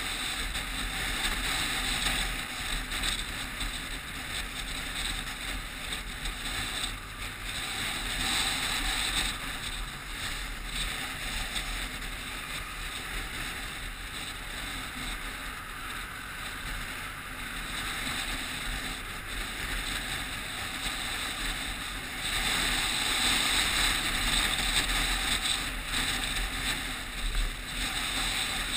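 Steady wind and road noise on a handlebar-mounted action camera while riding in city traffic, with passing vehicles. It gets louder about three-quarters of the way through as a lorry draws alongside.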